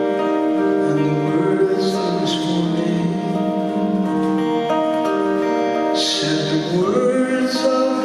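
Live concert music: guitar-led accompaniment with held notes changing every second or so, and a few short hissy accents.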